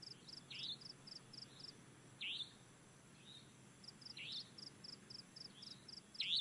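Faint outdoor nature ambience: insects chirping high and fast in regular trains that pause for about two seconds midway, with a short chirp falling in pitch about every two seconds.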